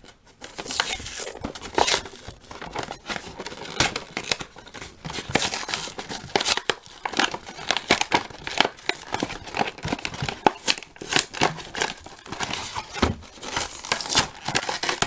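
Toy packaging being torn open by hand, with repeated irregular crinkling and ripping of cardboard and plastic.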